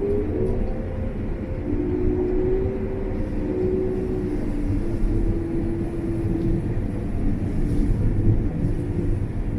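John Deere combine harvester running: a steady low drone with a whine that climbs in pitch at the very start and then holds steady.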